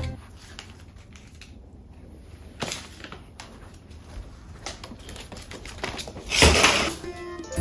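A ferret's claws clicking and tapping on a wooden floor, with light scattered ticks. About six and a half seconds in comes a short, louder rattle as the ferret steps onto a stack of wire-framed plastic panels.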